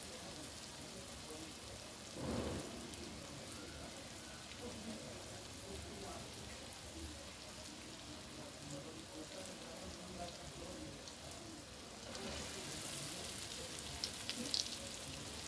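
Urad dal vadas deep-frying in hot oil in a kadhai: a faint, steady sizzle with fine crackles that turns brighter and hissier in the last few seconds. There is a short, louder noise about two seconds in.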